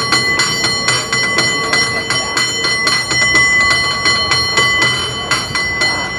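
San Francisco cable car bell struck by hand in a fast rhythmic pattern, several clangs a second, each strike ringing on into the next.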